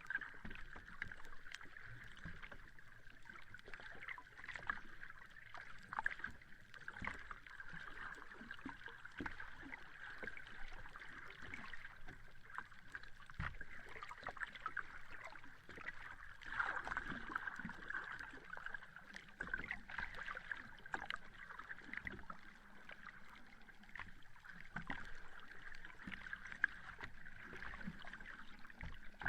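Sea water lapping and fizzing at the shore: a steady wash of many small splashes and crackles that swells slightly about halfway through.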